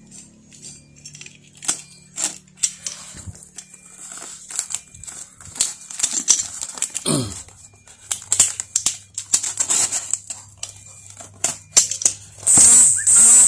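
Snap-off utility knife slicing through packing tape and plastic wrap on a cardboard box: scratchy scraping and irregular clicks with plastic crinkling. Near the end comes a louder rasping tear as the box flap is pulled open.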